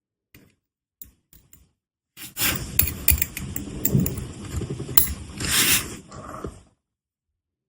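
Handling noise at a workbench: a few light clicks, then several seconds of quick clicking and clattering with rustling and a short hiss, ending suddenly.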